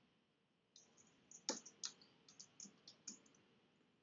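Faint, irregular clicking of a computer mouse and keyboard, about a dozen short taps starting about a second in.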